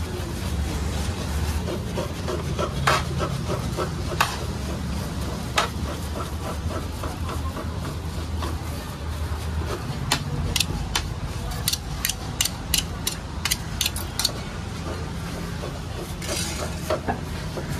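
A metal spoon scraping and tapping against a large steel plate as a mound of chaat mixture is pressed and shaped. Scattered clicks give way to a quick run of sharp taps, several a second, in the second half, over a steady low hum.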